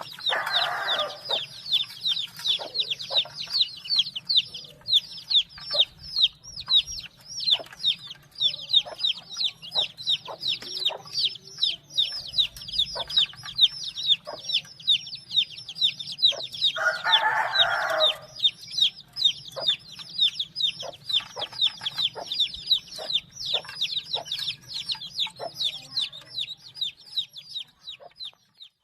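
A large brood of chicks peeping constantly, many short high peeps a second, each falling in pitch. An adult chicken gives a louder, lower call twice, once near the start and once about two-thirds of the way in.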